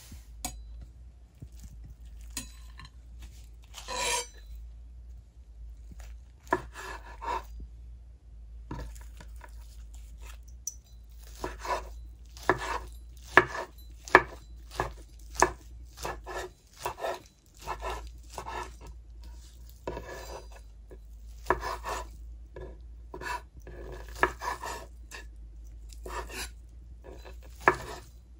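Chef's knife chopping a rolled thin egg omelette on a wooden cutting board: repeated sharp knocks of the blade on the board. The knocks come sparsely at first, then about one to two a second from roughly six seconds in.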